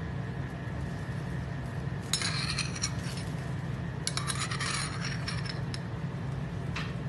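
A spoon clinking and scraping against a small bowl in two short clusters, about two seconds in and again about four seconds in, as small sorrel balls are spooned into it. A steady low hum runs underneath.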